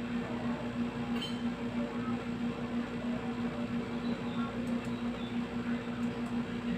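Split-type air conditioner's outdoor unit running with a steady hum while it is being recharged with refrigerant, the unit having been low on refrigerant.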